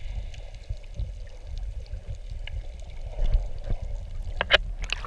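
Water sound picked up underwater by the camera: a steady, muffled low rumble of water movement with scattered small clicks, and a few sharper crackles about four and a half seconds in.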